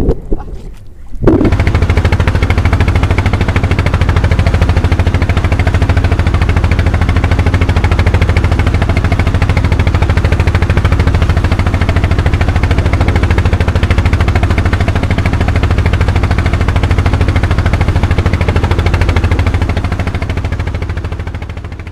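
A wooden fishing boat's engine running steadily under way, with a loud fast pulsing beat and water rushing along the hull. It starts about a second in and fades out near the end.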